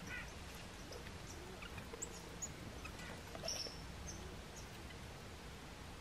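Small songbirds calling: scattered short, high-pitched chirps and chips, a few at a time, over a faint steady background hiss.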